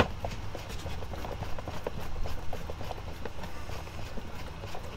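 A sharp click at the start, then a run of small, irregular plastic ticks and clicks as the air filter box lid is pressed down and fastened back in place.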